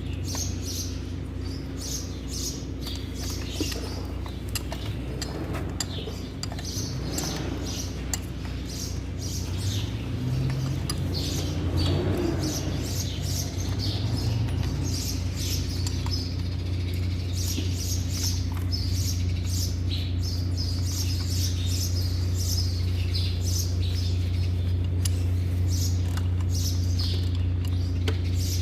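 Small birds chirping again and again over a steady low hum of running machinery.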